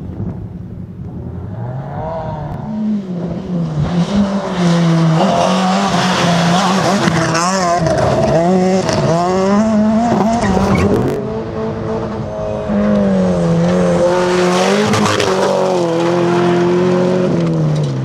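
Rally car engine at high revs on a loose gravel surface, the note climbing and dropping again and again with gear changes and throttle lifts, over the hiss of tyres spraying gravel. It builds from about two seconds in.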